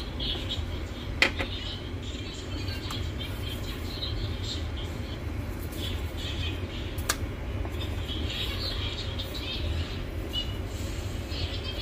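Birds chirping on and off in the background over a steady low hum, with two sharp clicks, about a second in and about seven seconds in.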